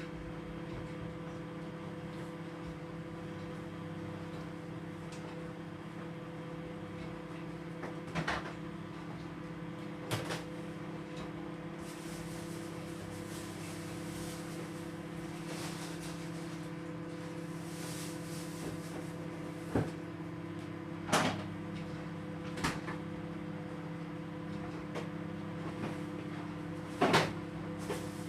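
Steady hum of a running household appliance, with several sharp knocks and clatters of things being handled or set down; the loudest knock comes near the end.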